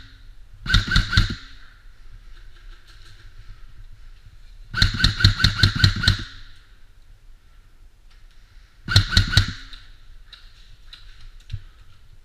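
Airsoft AEG rifle firing three short full-auto bursts, the electric gearbox cycling with a rapid clatter. The bursts come about a second in, about five seconds in (the longest, over a second) and about nine seconds in.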